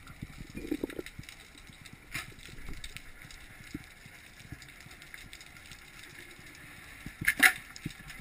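Muffled sound of a camera held underwater: a low, uneven rumble of moving water with scattered clicks and knocks, and one louder clatter about seven seconds in.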